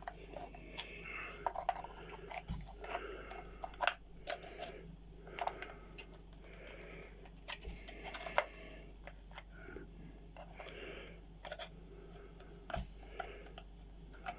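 A sliding puzzle box being handled and reassembled: irregular small clicks and taps as its sliding pieces are pushed back into place, with a few soft thumps.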